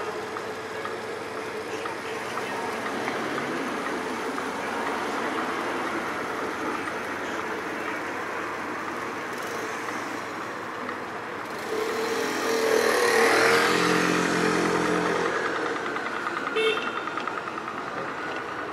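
City street traffic running steadily. About twelve seconds in, a motor vehicle passes close, its engine swelling for a few seconds and then fading. A short high tone sounds near the end.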